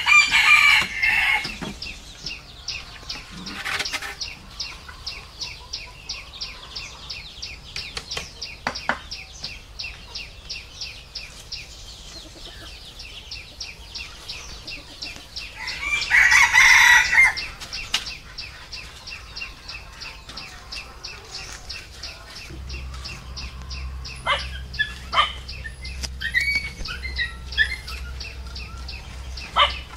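Rooster crowing twice, once at the start and again about sixteen seconds later, each call about a second and a half long, over a steady, fast, high-pitched pulsing. A few sharp knocks come in between.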